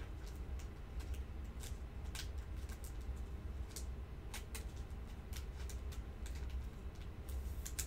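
Faint, irregular clicks and light plastic ticks from a trading card being handled in a clear plastic sleeve, over a low steady hum.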